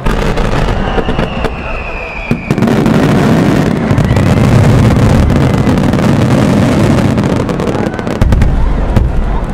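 Japanese star mine fireworks finale: a dense, continuous barrage of shell bursts and crackle that starts abruptly, grows louder a couple of seconds in, and peaks with a heavier burst near the end.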